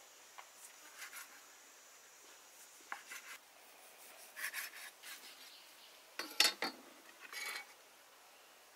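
Cleaver slicing boiled pork on a wooden cutting board: a handful of short, scraping strokes spread apart, with one louder knock of the blade on the board about six and a half seconds in.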